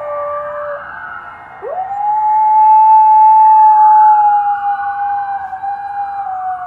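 A dog howling in long, held notes: one howl trails off about a second in, and the next starts with a quick upward slide and is held steady and loud, sinking at the very end. A siren wails more faintly behind it.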